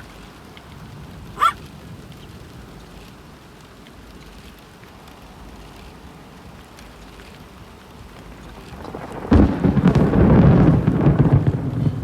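Thunderstorm: a steady patter of rain, then about nine seconds in a sudden loud clap of thunder that rumbles on without stopping. Two short rising chirps sound near the start.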